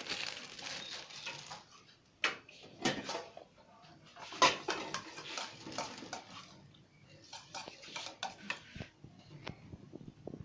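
Kitchen handling sounds: sharp knocks and clicks of dishes and utensils, between three stretches of rustling.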